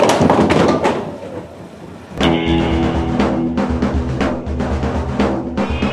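A duckpin ball rolling down the lane: a loud rumble that fades away over the first two seconds. About two seconds in, music with a steady drum beat starts.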